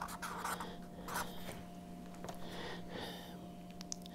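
Pen writing numbers on a paper note card: faint, short scratching strokes over a steady low hum, with a light click near the end.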